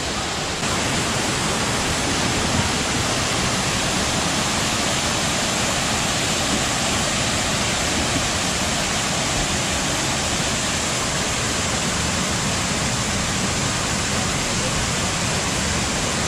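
Waterfall pouring into a rock pool: a steady rush of falling water, a little louder from under a second in.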